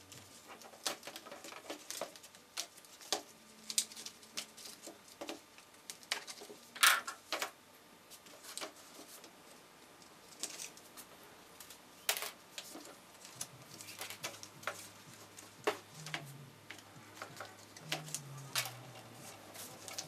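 Irregular clicks, taps and scrapes of hand work on a furnace filter and a box fan: a screwdriver pokes holes in the filter's backing and plastic zip ties are threaded through the filter and the fan's plastic back grille. The loudest click comes about seven seconds in.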